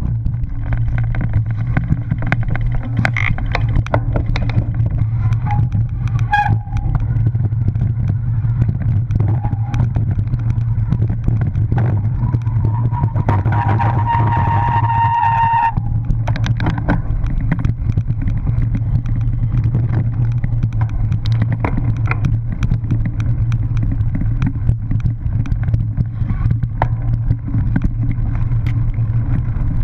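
Cyclocross bike ridden fast over grass and dirt, heard from a camera mounted on it: a steady wind rush and low rumble from the tyres, with constant rattling knocks as the bike hits bumps. About halfway through a high steady whine runs for a few seconds and cuts off suddenly.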